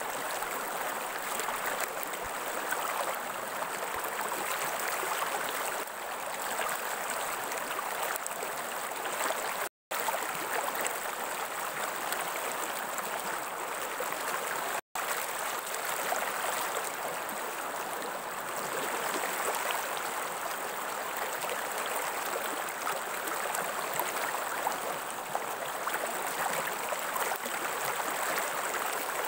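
Steady rushing and gurgling of flowing stream water, cut by two very brief drops to silence about ten and fifteen seconds in.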